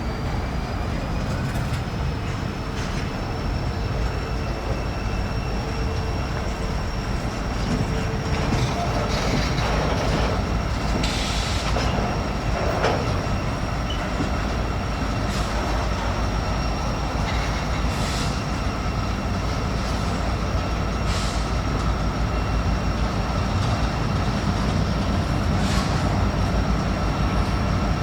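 Freight train rolling past: a steady rumble of steel wheels on rail, with a thin, high wheel squeal and occasional sharp clicks as wheels cross rail joints.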